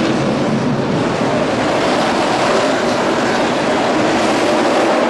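NASCAR Sprint Cup stock cars running at speed on track, their V8 engines a loud, steady drone.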